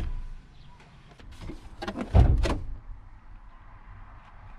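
A few dull knocks and thumps: a short one at the start, then a cluster of three or four about two seconds in.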